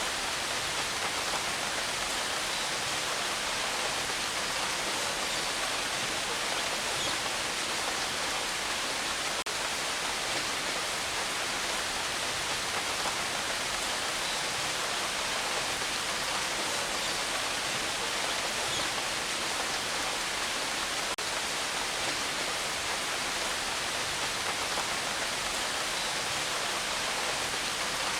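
Steady rain falling without thunder: an even hiss that holds constant throughout.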